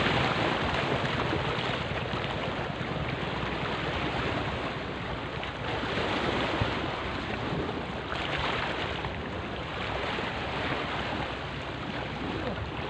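Small sea waves washing and splashing against the rocky foot of a seawall, with wind on the microphone. The wash swells now and then, most noticeably about six and eight seconds in.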